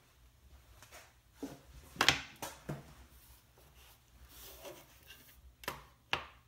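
Large clear plastic drafting triangle handled on paper over a wooden desk: a few sharp knocks and taps, loudest about two seconds in. A brief scraping slide as the paper and triangle are turned, then two more taps near the end.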